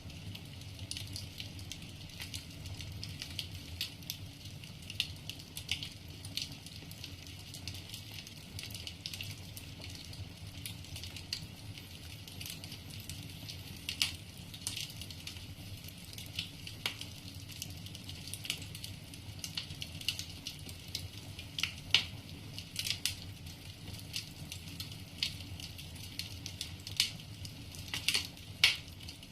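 Wood fire burning in a fireplace: the logs crackle with frequent irregular sharp pops over a steady low rumble, with a few louder snaps about two-thirds through and near the end.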